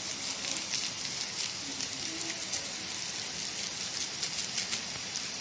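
Tamarind chutney with cooking oil in it boiling hard in a pan: a steady hiss full of fine crackling pops from bursting bubbles.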